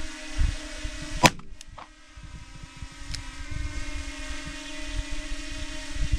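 Steady hum of a hovering multirotor drone, with wind gusting on the microphone. About a second in there is one sharp gunshot crack from a snub-nose Smith & Wesson 351 PD revolver firing .22 WMR (CCI MaxiMag) into a ballistics gel block.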